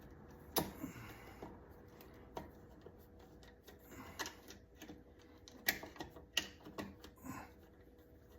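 Scattered light clicks and taps, about ten at uneven intervals, as a USB wall outlet's mounting screws and spacers are lined up and fitted into the electrical box.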